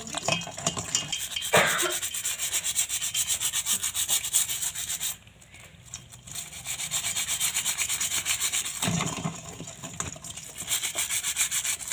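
Stiff plastic scrub brush scrubbing a mud crab's shell in a basin of water: quick, regular back-and-forth strokes, with a pause of about a second midway.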